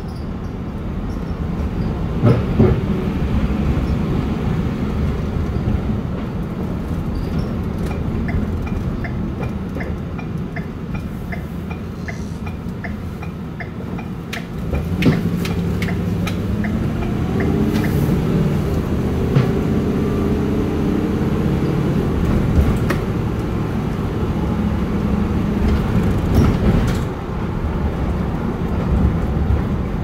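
Car engine and road noise heard from inside the cabin at city speeds. Midway a turn signal ticks steadily for several seconds while the car slows to a crawl for a turn. After that the engine and road noise grow louder as the car speeds up again.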